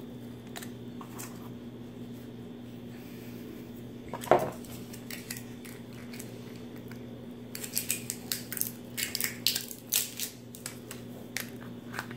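A hard tablet drops into a glass supplement bottle with a single sharp clink about four seconds in. Later comes a quick run of light clicks and clinks as the glass bottle and its cap are handled and screwed shut, over a steady low hum.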